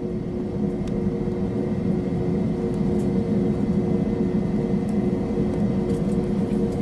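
Jet airliner's engines at low taxi power heard inside the passenger cabin: a steady droning hum over a low rumble, growing slightly louder.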